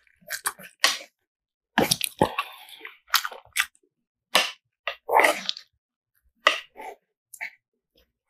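Close-miked chewing of a mouthful of jjajang ramen (instant black bean noodles), in irregular short bursts with brief pauses.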